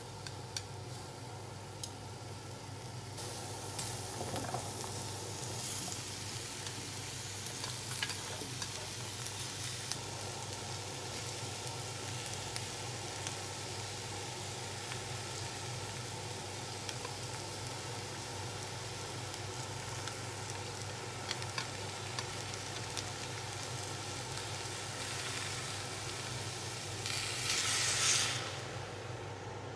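Beef sizzling steadily in a cast-iron frying pan, with scattered clicks and scrapes from stirring and from vegetables being tipped in. Near the end, liquid poured into the hot pan sends up a brief, louder burst of hissing that cuts off sharply.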